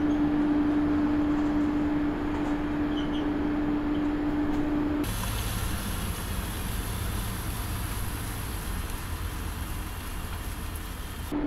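Mercedes-Benz articulated city bus moving slowly. Inside the cab a steady single-pitched tone sounds over the running noise, then about five seconds in it cuts abruptly to the plainer running noise of the bus heard outside.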